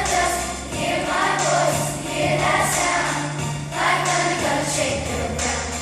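Fifth-grade children's choir singing over an instrumental accompaniment, with low bass notes held for several seconds under the voices.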